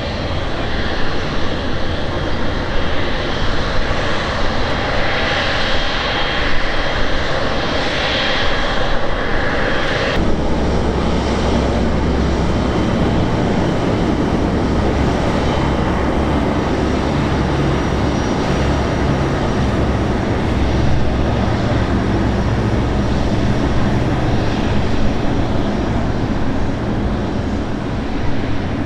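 Engines of a landing twin-engine wide-body jet airliner, running loud and steady with a high whine; about ten seconds in the sound changes abruptly to a deep rumble.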